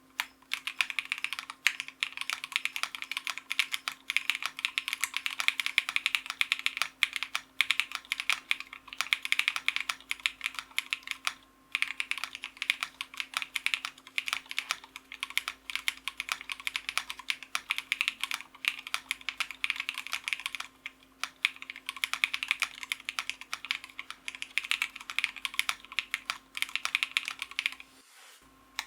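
Steady typing on a Meow65 custom mechanical keyboard with Cobalt Pom switches lubed with Krytox 205g0, a polycarbonate plate and Cherry-profile Honey and Milk keycaps: a fast run of keystroke clacks, broken by short pauses about 11 seconds in, about 21 seconds in and near the end.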